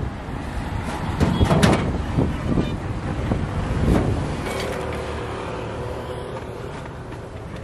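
Wind rumbling on the microphone, with several sharp knocks and clatters as the steel stall and its charcoal grill tray are handled. Most of the knocks come in the first half.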